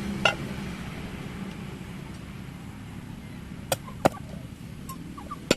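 About four sharp, short knocks or strikes, spaced unevenly (one near the start, two close together past the middle, one near the end), over a steady low background noise.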